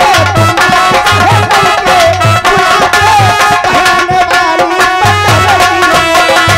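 Live Indian folk stage music: an electronic keyboard plays a held, wavering melody over a fast hand-drum rhythm. A deep beat falls roughly once a second.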